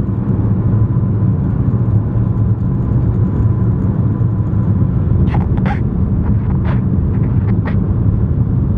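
Car driving, a steady low rumble of engine and road noise, with a few short light clicks about five to eight seconds in.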